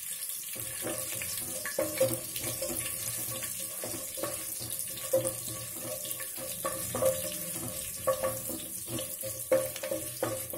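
Tempering spices (mustard seeds, cumin, split chana and urad dal, dried red chillies, curry leaves) sizzling in hot oil in a pot, with a steady hiss and irregular crackles, and a spatula stirring them.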